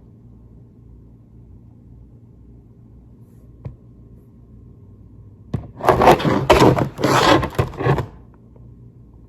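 Retail package being handled: a single click, then about two and a half seconds of loud scraping and rustling a little past halfway through, against a faint steady hum.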